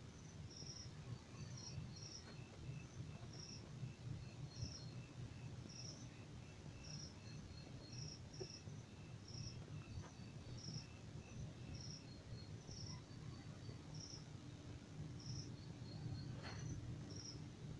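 Faint insect chirping: short, high chirps repeating about once a second over a low background hum.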